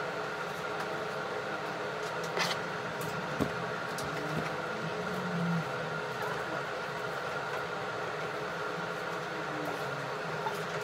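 Steady mechanical hum with a couple of faint tones held in it, broken by a few light clicks and knocks.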